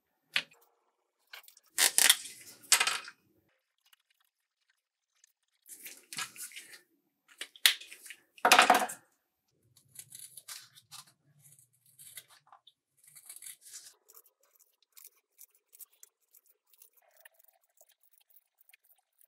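Scissors snipping through a piece of leather in many small cuts through the second half, cutting out a traced disc. Earlier come a few louder, short scrapes and knocks of handling on the workbench.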